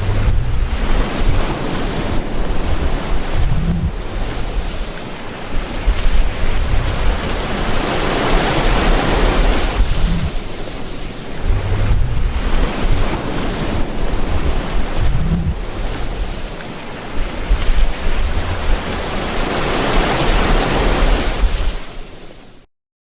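Ocean waves breaking and washing on the shore, the surf swelling and easing in long surges, with a low rumble underneath. Near the end the sound fades and cuts out briefly.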